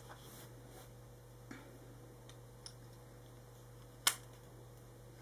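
Small plastic clicks from handling a toy self-inking stamp: a few faint ticks, then one sharp click about four seconds in, over a steady low hum.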